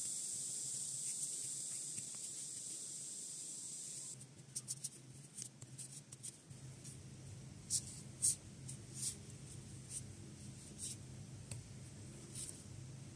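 Faint scratchy rustles and irregular small ticks of a metal crochet hook being worked through yarn, under a steady hiss that drops away about four seconds in.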